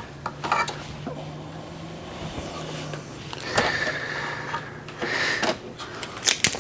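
Hands handling printer parts and cables: scattered small clicks and knocks with some rustling, over a faint low steady hum.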